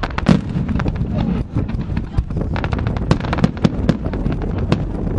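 Fireworks display with aerial shells bursting: a dense run of sharp bangs and crackles, the strongest bang about a third of a second in.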